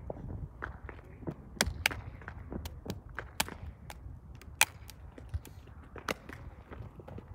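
Hand claps and slaps of a two-person unarmed drill routine: a dozen or so sharp smacks at irregular spacing, the loudest about four and a half seconds in, over a faint low rumble.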